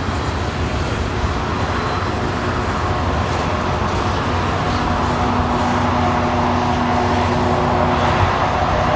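Mid-train locomotives of a heavy coal train working slowly up a grade, a steady engine drone with several held tones, over the rumble of the passing wagons. It grows slowly louder as the locomotives approach.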